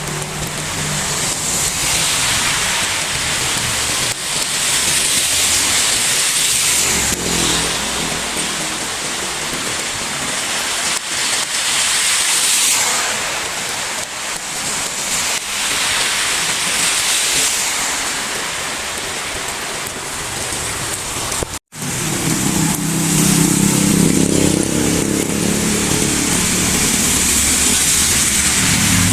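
Heavy rain pouring steadily, with vehicles swishing past on the wet road, their tyre hiss swelling and fading several times. A brief dropout comes about three-quarters of the way through, after which a lower steady hum joins the rain.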